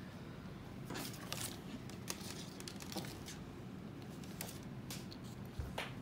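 Quiet room tone with a steady low hum and a few faint, scattered clicks and rustles of handling.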